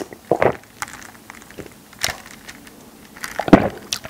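Water being drunk from a thin plastic cup close to the microphone: a few separate swallowing and small crackling sounds from the cup, the loudest about three and a half seconds in.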